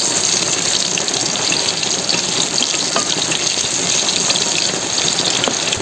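Red onions sizzling steadily in hot oil with fried garlic in a metal wok, just added to the oil.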